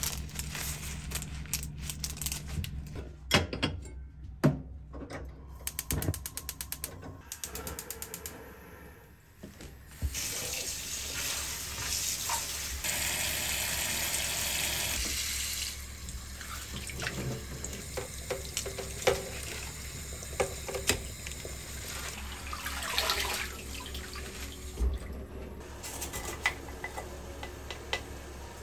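Kitchen tap water running into a stainless steel bowl of spinach leaves being rinsed, a steady rush for several seconds in the middle. Scattered clicks and handling knocks from food preparation come before and after it.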